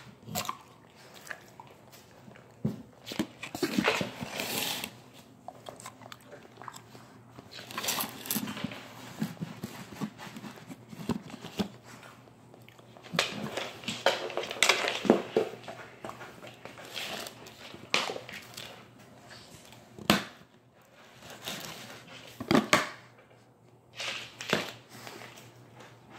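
Chocolate Labrador chewing and crunching hard dog biscuits and licking crumbs off the floor, in irregular bouts of crunching separated by short pauses.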